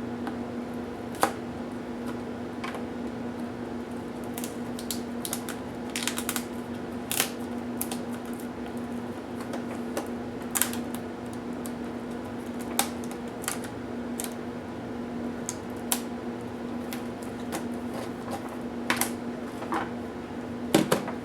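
Irregular sharp clicks and taps from the small plastic and metal parts of a Toshiba P755 laptop being handled and pried apart during disassembly. They sound over a steady low hum.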